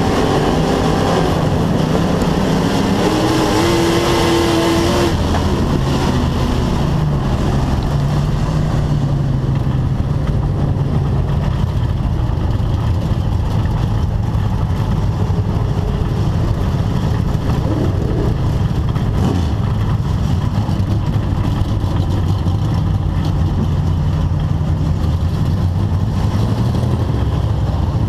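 Bomber-class dirt track race car's engine heard from inside the cockpit: the revs climb for the first few seconds, drop back about five seconds in, then the engine runs steadily at low speed.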